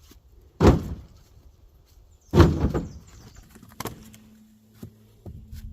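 Two heavy bangs on a pickup truck, about two seconds apart, followed by a few lighter knocks and a low steady hum that starts about four seconds in.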